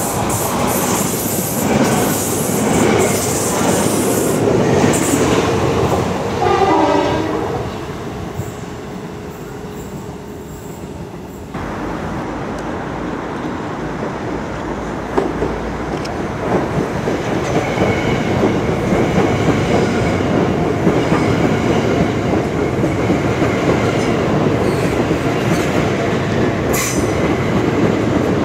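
Electric trains passing through at speed. First a Southeastern Class 375 Electrostar runs through, loud at first and fading away over several seconds. Then a pair of Class 377 Electrostars approaches, its wheel and rail noise building to a steady loud rush as the units pass close by, with a sharp clank near the end.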